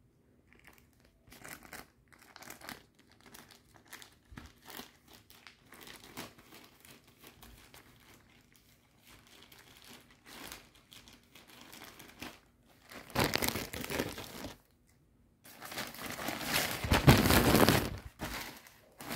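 Plastic courier mailer bag crinkling as it is handled: faint scattered rustles at first, then two louder stretches of crinkling in the last six seconds.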